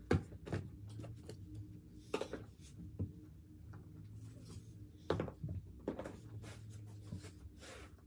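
Scattered soft knocks and clatters of toy blocks being handled and set down on a foam play mat, over a faint low steady hum.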